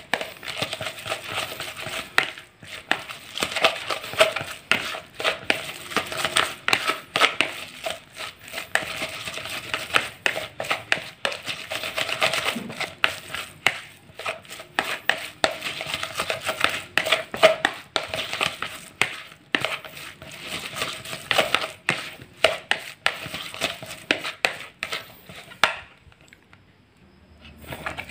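Boiled fish flesh and peeled shrimp being mashed into a paste in a plastic basin: rapid, irregular scraping and squishing strokes against the bowl. The strokes stop about two seconds before the end.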